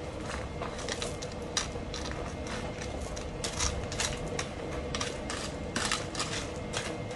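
Loose gravel stones clicking and scraping against each other and a small hand tool as it digs into a gravel bed: irregular sharp clicks, a few louder clacks in the middle.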